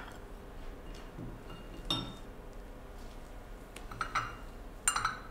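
China teacups and saucers clinking: a clink about two seconds in and two more near the end.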